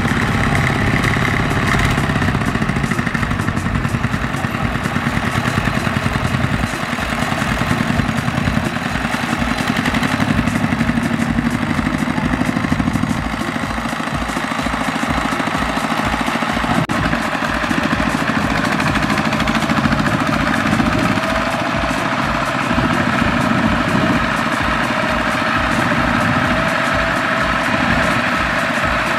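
Single-cylinder diesel engines of several two-wheel walking tractors, Kubota ZT120 type, running together with a steady, rapid low pulse as they haul loaded trailers of rice sacks.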